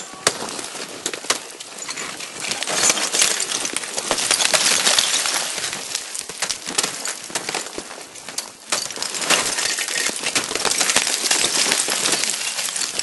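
Ice axe picks striking and chipping into waterfall ice, with many sharp hits and showers of broken ice fragments clinking and skittering down like glass. The clatter of falling ice swells twice, about three seconds in and again about nine seconds in.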